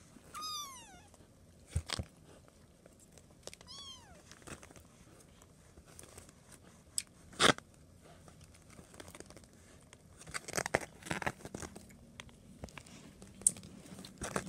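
Kitten meowing twice, short and high-pitched, about half a second in and again about four seconds in. Scattered knocks and clatter follow, the loudest a sharp knock about seven and a half seconds in, as kittens bat plastic and rubber toys about on a wooden floor.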